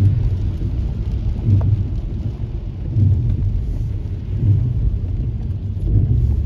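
Low rumbling road and rain noise inside a moving car on a wet road, swelling about every one and a half seconds.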